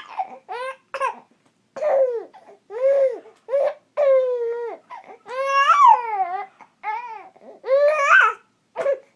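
A baby fussing in a run of short, high-pitched cries and babbling sounds, about eleven of them, many rising and falling in pitch. A short sharp click comes near the end.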